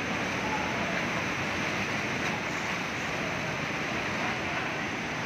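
A waterfall swollen by heavy rain, with muddy floodwater rushing steadily over the rocks in an unbroken roar of water.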